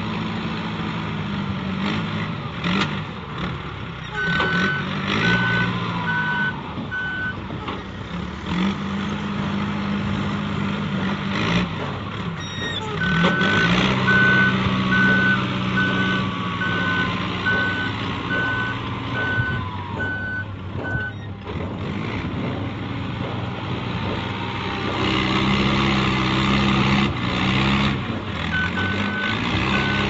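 XCMG WZ30-25 backhoe loader working: its Yuchai diesel engine runs with its speed rising and falling under load. Its reversing alarm beeps about twice a second in three spells as the machine backs up, with a wavering whine alongside during the longest spell.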